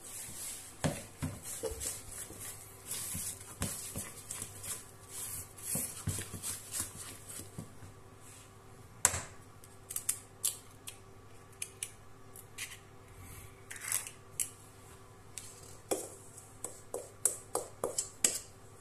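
Spatula stirring and scraping cake batter in a plastic mixing bowl, a run of soft repeated swishes for the first several seconds. After that come scattered sharp clicks and knocks as a spoon taps against a stainless steel bowl and the mixing bowl while flour is spooned in.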